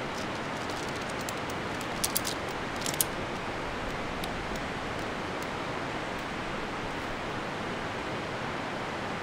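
Steady rushing of river rapids, with a few sharp clicks as shock-corded tent pole sections snap together: two about two seconds in and two more, the loudest, about a second later.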